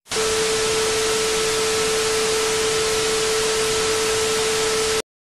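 Loud, steady static hiss with a single steady tone running through it, starting abruptly and cutting off suddenly about five seconds in.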